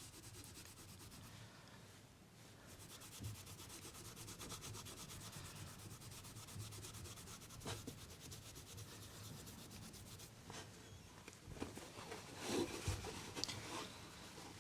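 Faint rubbing of a cloth on a pocket knife's brass fittings, buffing off dried Never Dull polish. A few light knocks from handling the knife, mostly near the end.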